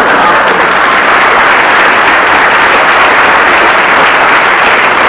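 Studio audience applauding and laughing, loud and sustained.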